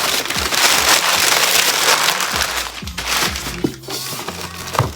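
Packaging crinkling and rustling as a box is unpacked by hand, in a continuous dense scrunching that eases off slightly near the end.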